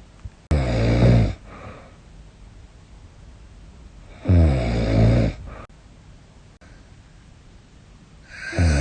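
A woman snoring in her sleep: three loud, rasping snores about four seconds apart, with quiet breathing between them. This is snoring that she suspects is a sign of sleep apnea.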